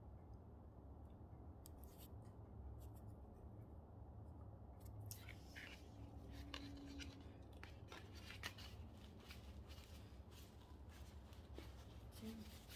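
Faint rustling and light clicking as hands handle a potted foxglove, touching its leaves and lifting its plastic pot; the rustling becomes denser about five seconds in.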